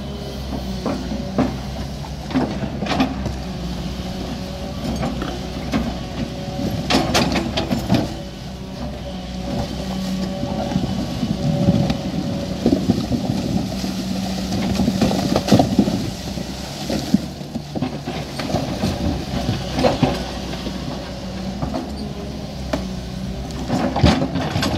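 JCB JS200N excavator working: its diesel engine runs steadily, swelling and easing under load, with sharp metallic clanks and knocks every few seconds.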